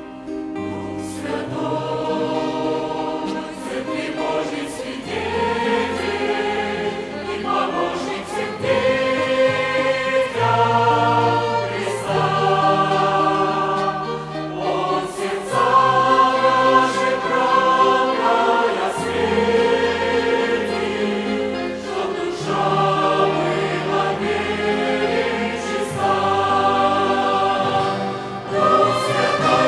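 Mixed church choir singing a hymn in sustained chords, accompanied by a violin ensemble.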